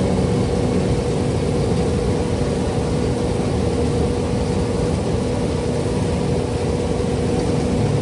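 An engine running steadily with a constant hum, with no change in speed.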